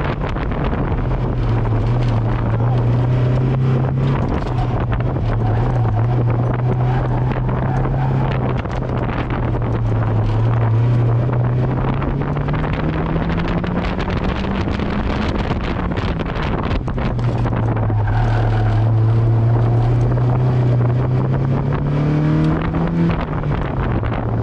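Mazda MX-5's four-cylinder engine pulling under load, with wind noise. The revs climb steadily in the middle, drop, then climb again near the end before dropping once more, as on a gear change or lift.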